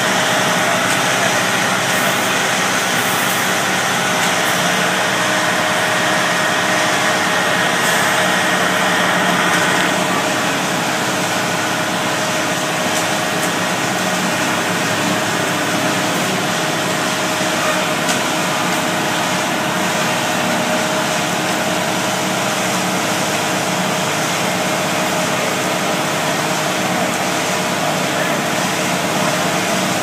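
Engines of concrete-pouring machinery running steadily: a ready-mix concrete truck and a motorized concrete power buggy, a continuous engine hum that drops slightly about ten seconds in.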